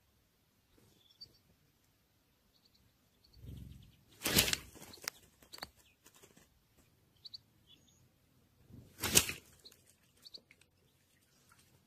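Scattered short, high chirps of small birds, with two brief rushes of noise about four and nine seconds in, the loudest sounds here.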